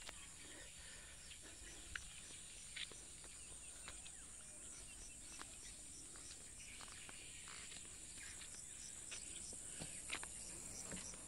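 Faint steady high-pitched drone of insects, with a faint run of evenly spaced chirps in the second half and a few scattered soft clicks and scuffs of footsteps on planks and gravel.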